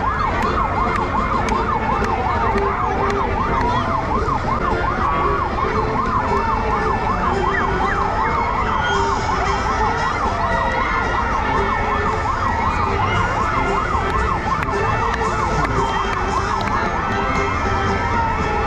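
Several emergency-vehicle sirens sounding at once: fast yelping sirens overlap a slower siren that rises and falls every couple of seconds, over a steady low rumble.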